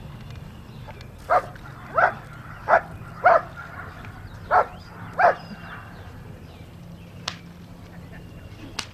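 Working dog barking at a protection helper in a bite suit: six short, sharp barks in irregular pairs over the first five seconds or so, then no more barking.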